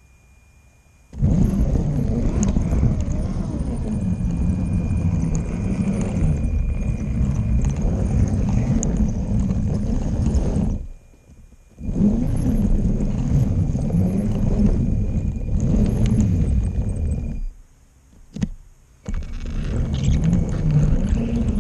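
Electric motor and wheels of a LEGO train rolling over plastic LEGO track, heard from a camera riding on the train: a loud rumble with a wavering hum. It starts about a second in and cuts out abruptly twice, briefly in the middle and again for a second or so near the end, with a single click during the second gap.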